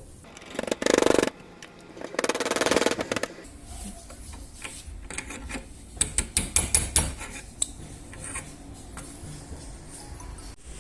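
Workshop tool and metal parts at work as a new PTFE bushing is pressed into a steering rack housing. Two harsh buzzing bursts of about a second each come near the start, followed by a series of light metallic clinks and knocks.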